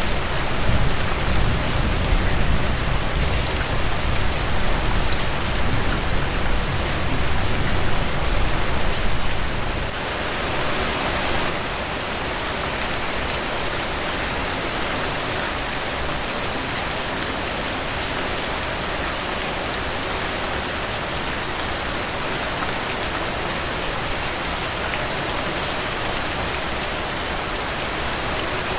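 Steady rain falling on broad tropical leaves: a dense, even patter of drops. A low rumble runs under it for roughly the first third and then drops away.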